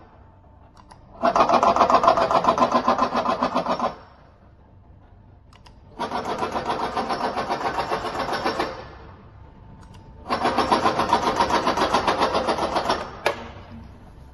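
Auger powder filling machine's drive motor running in three bursts of about two and a half seconds, each one fill dose, with a fast even pulsing and pauses of about two seconds between them. A sharp click just after the last burst.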